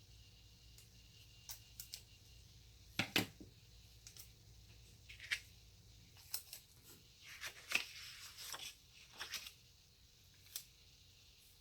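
Scissors cutting paper: a series of short, sharp snips at irregular intervals, the loudest about three seconds in and a quick run of them a little past the middle.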